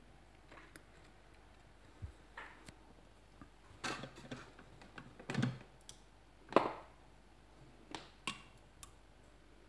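Scattered light clicks and knocks: about a dozen irregular taps over a quiet room, the loudest about six and a half seconds in.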